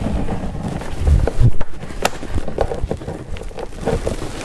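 Plastic trim-removal tool prying at the tight retaining clips of a BMW F10 rear door panel, with irregular knocks, scraping and creaking of the plastic panel, heavy thuds about a second in and a sharp click about two seconds in. The clip is extremely tight and is not coming loose.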